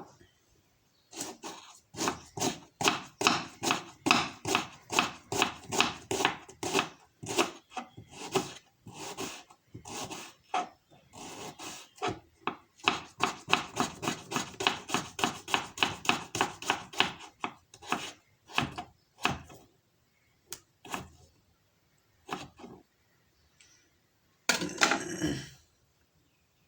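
A kitchen knife chopping onion on a cutting board, several quick strokes a second, that thins to a few scattered knocks and ends with a short scraping noise near the end.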